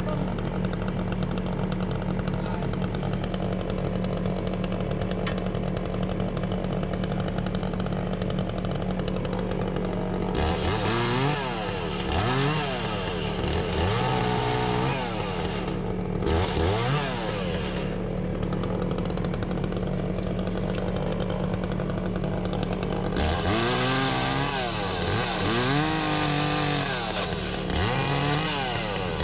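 Echo CS-400 two-stroke chainsaw running, revved up and down again and again from about ten seconds in as it cuts through logs, each rev rising and falling in pitch. A steady engine hum runs underneath.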